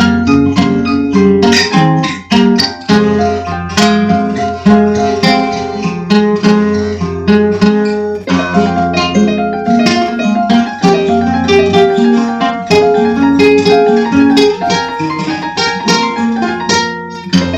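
Instrumental passage of dark folk music: acoustic guitar picked in quick runs of notes over a steady low bass drone, with a brief dip about 17 seconds in.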